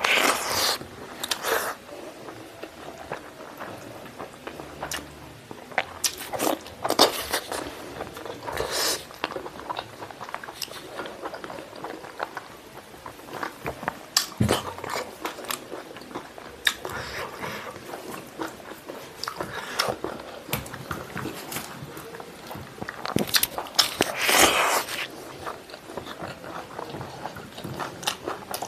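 Close-up mouth sounds of a person chewing boiled pork stomach and intestine with rice: irregular smacks and clicks, louder near the start and again about three-quarters of the way through.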